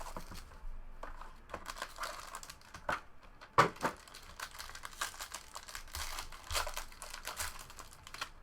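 Plastic wrapping crinkling and tearing as a box of trading cards is unwrapped and opened, with a run of small clicks and rustles from handling the packaging and cards and one sharper click about three and a half seconds in.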